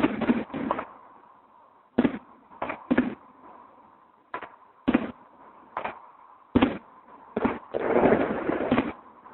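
Fireworks exploding: a dozen or so sharp bangs at uneven intervals, then a rapid run of crackling bangs near the end.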